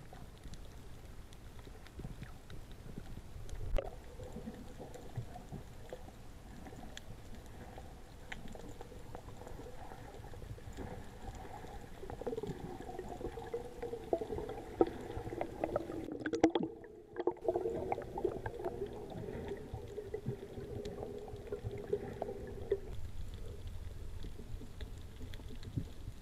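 Underwater reef ambience heard through an action camera's waterproof housing: a steady low rush with scattered faint crackling clicks. A low wavering hum sits over it through most of the middle, and the sound drops out briefly a little past halfway.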